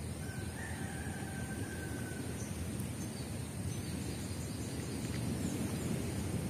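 Low, steady rumble of wind buffeting the microphone outdoors, with a faint thin high whine throughout and a brief whistle-like tone in the first two seconds.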